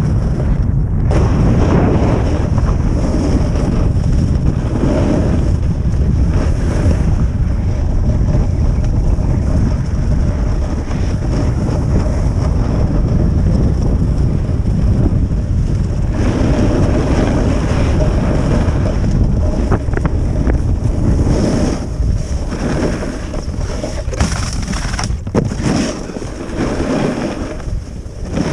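Wind rushing over the microphone while riding a snowboard fast down a groomed piste, with the board sliding and scraping on the hard-packed snow. The rush eases and becomes patchier about three-quarters of the way through as the rider slows.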